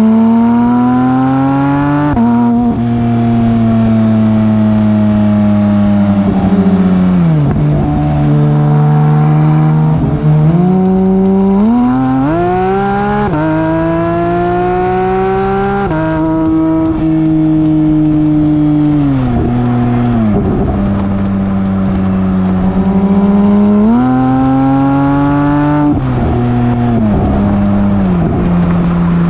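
Porsche 992 GT3 RS's naturally aspirated flat-six, breathing through a Dundon Motorsports Inconel exhaust with headers, side mufflers and a rear mini crack pipe, pulling on the road. Its pitch climbs under acceleration, falls sharply at each shift, and sinks as the car eases off, several times over.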